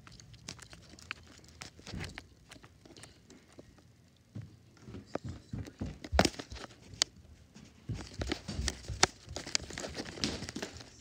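Handling noise of a phone: its microphone rubbing and knocking against clothing, giving scattered rustles, crinkles and sharp clicks. It is quieter in the middle, then busier in the last few seconds.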